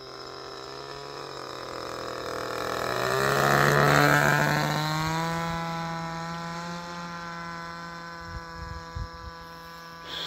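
Model-aircraft NGH GT9 Pro 9cc single-cylinder two-stroke gasoline engine turning an APC propeller in flight. It grows louder to a peak about four seconds in as the plane passes, then fades.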